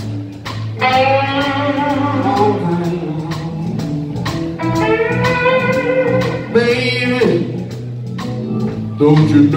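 Live blues-rock band playing: electric guitars, bass, drums and keyboard, with long held lead notes about a second in and again in the middle.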